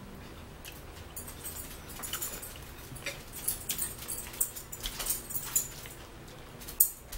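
Close-up chewing of steak: an irregular run of small clicks and smacks, several a second, starting about a second in.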